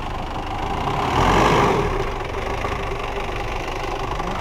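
A motor running steadily with one constant hum, under a broad noise bed that swells louder for about a second, starting a second in.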